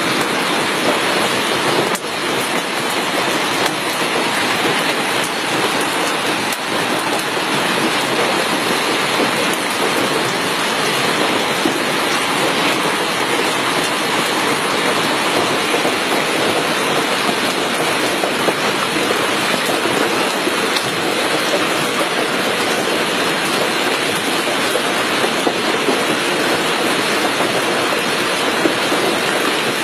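Heavy hailstorm: hailstones pelting down and striking surfaces in a dense, steady clatter.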